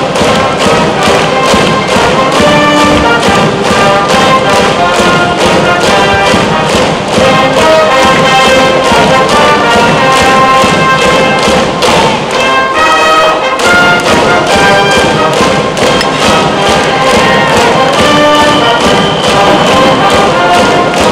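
High school cheering brass band playing a cheer song: brass melody over a steady drum beat.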